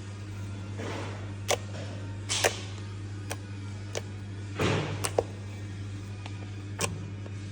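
Homemade slime being squeezed and stretched in the hands, giving a handful of sharp clicks and pops with softer squelches between them, over a steady low hum.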